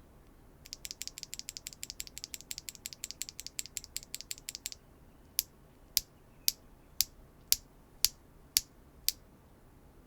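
Factory-lubed HMX Sprite linear mechanical keyboard switches being pressed: a fast run of clacks lasting about four seconds, then eight slower single clacks at about two a second.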